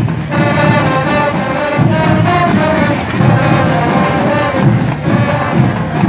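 Brass band music: horns playing a melody in held notes over a pulsing bass line.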